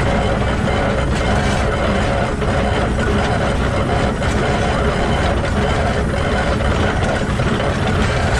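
Shay geared steam locomotive SL-31 running at speed, heard right at its truck: the exposed bevel gears on the wheel meshing and the wheels rolling on the rails make a loud, steady mechanical churning.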